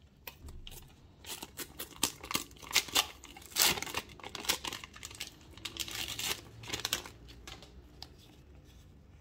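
Panini sticker packets being torn open and the stickers handled: a run of short paper rips and crinkling rustles, loudest about three and a half seconds in, thinning out near the end.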